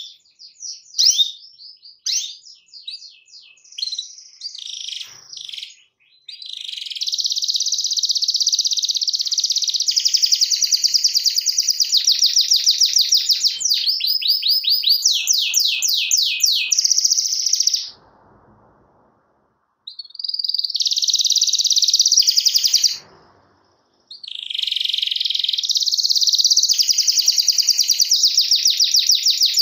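Domestic canary singing: short chirps and quick trill phrases at first, then long, very fast rolling trills. The trills break off twice for a second or two past the middle.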